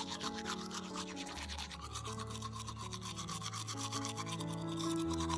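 Manual toothbrush scrubbing teeth in rapid back-and-forth strokes, over background music with sustained notes.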